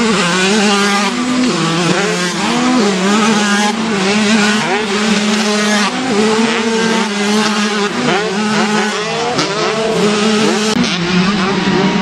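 Several vintage two-stroke motocross bikes revving hard over a jump, their engines overlapping and rising and falling in pitch again and again.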